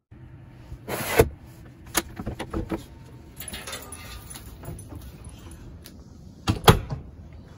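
A few sharp knocks and clicks with light rattling between them, the loudest knock near the end.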